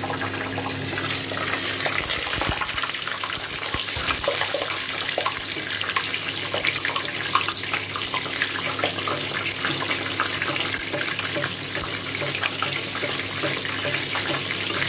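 Half a chicken frying in shallow oil in a steel pot: a steady, dense crackling sizzle that grows brighter about a second in, as the glass lid comes off. The oil is too shallow to cover the chicken.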